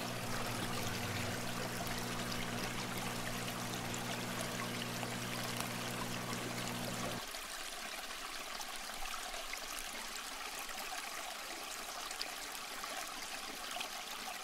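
Aquarium water trickling with a steady low electrical hum. About seven seconds in the hum cuts off abruptly and only a fainter watery hiss remains.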